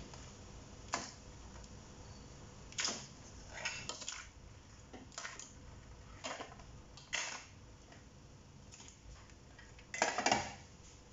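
Cooked crabs dropped one by one from a metal tray into a wok, their shells knocking and clattering against the tray and pan. About half a dozen separate knocks, with the loudest clatter near the end.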